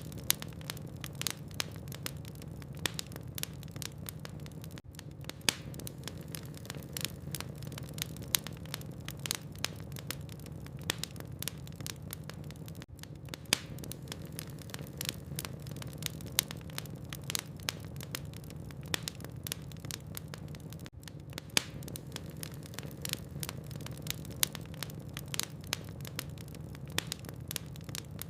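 Wood logs burning in a fireplace, crackling with many small sharp pops at irregular intervals over a steady low background noise.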